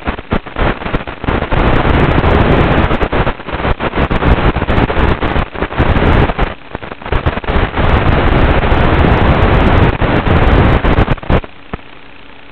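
Loud crackling static hiss from an analog FPV video receiver's audio channel as the radio link from a Tinyhawk micro drone weakens, full of crackles and brief dropouts. About eleven and a half seconds in it stops abruptly and gives way to a steady low hum.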